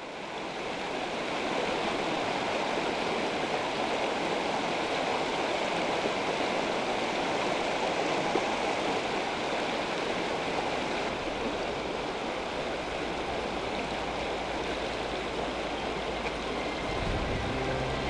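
Shallow river running over a rocky riffle: a steady rush of water, fading in over the first second or two.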